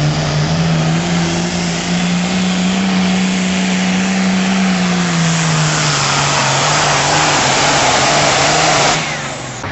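Hot farm class pulling tractor's engine running hard under full load down the track. Its pitch climbs a little, then sags about halfway through as a loud rushing noise builds, and the sound drops off sharply near the end.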